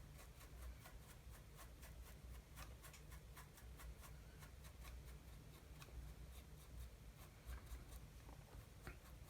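Faint, irregular small scratching and dabbing as filler is worked into pin holes on a wooden model ship's capping, over a low steady room hum.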